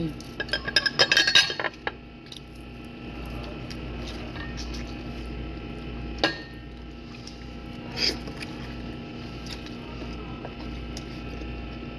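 Eating and food handling close to the microphone: a quick run of clicks and clinks in the first two seconds, then single clicks and smacks about six and eight seconds in as barbecued chicken is eaten by hand, over a steady low hum.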